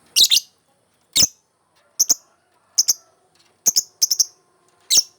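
Lovebird chirping in full voice: short, shrill chirps in quick singles, pairs and one triple, about one group a second, with quiet gaps between.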